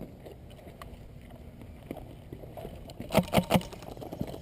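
Three quick sharp cracks of airsoft fire about three seconds in, over a low steady rumble of wind and handling on the body-worn camera.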